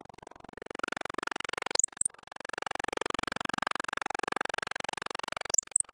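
A countersink turning in the Grizzly G4015Z mill spindle, cutting chamfers into tapped holes in a cast iron plate. The cut gives a rapid, even rattle, with sharp ticks about two seconds in and again near the end.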